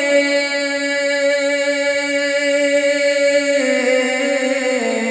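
A man singing a naat unaccompanied, holding one long note and then stepping down in pitch twice near the end.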